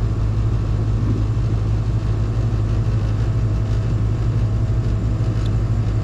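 R22 heat pump outdoor unit running with a loud, steady hum from its compressor, just after coming out of a defrost cycle.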